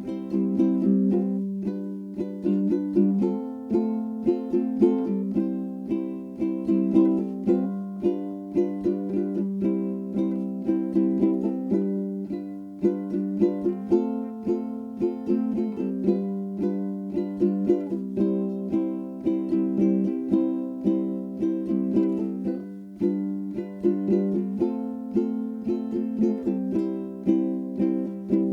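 Background music: a ukulele strumming a light, repeating chord pattern.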